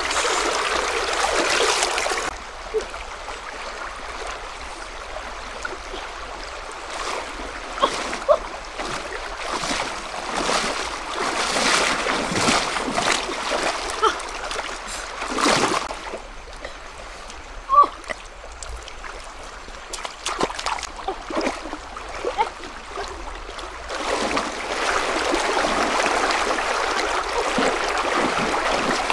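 Shallow stream water rushing over stones, with irregular splashes from someone wading through it. The rush is louder for the first two seconds and again over the last five.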